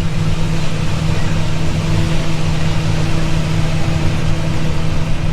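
Combine harvester running steadily while harvesting corn, heard from inside its cab: an even drone holding one steady pitch over a constant rushing noise.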